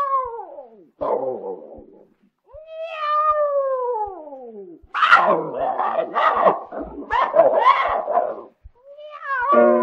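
Old 78 rpm record of a children's song: long falling cat meows, then a run of dog-like barks, over faint regular record-surface ticks. Piano comes in near the end.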